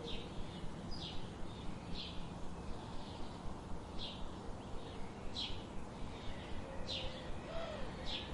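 Birds chirping: short, high, downward-sliding chirps about once a second over a steady low background hiss, with a lower wavering call coming in near the end.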